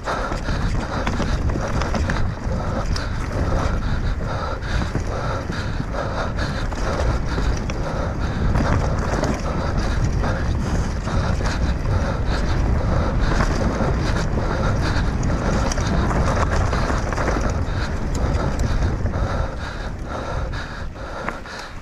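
Wind buffeting an action camera's microphone on a fast mountain-bike descent, with the bike clattering and rattling over rough ground.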